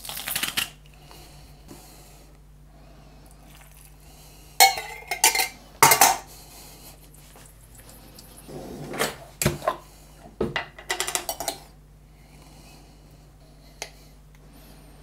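A spoon, jars and a bowl knocking, clinking and scraping on a kitchen worktop as hummus ingredients are spooned in, in several short bursts of clatter with quieter gaps between.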